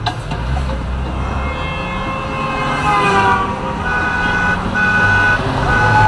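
Car horns honking in a slow-moving car rally over the low rumble of traffic. About halfway in, one horn tone falls in pitch, then several separate steady horn blasts follow.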